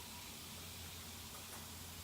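Quiet room tone: a steady low hum and hiss, with one faint tick about one and a half seconds in.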